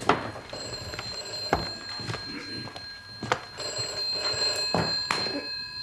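Telephone bell ringing in two long rings, about a second and a half each, with footsteps knocking as someone walks over to answer it.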